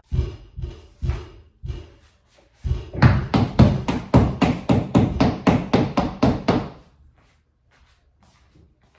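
Heavy footsteps thudding on the floor of the upstairs apartment. A few separate thumps come first, then about four seconds of rapid stomping, around four a second, which stops abruptly.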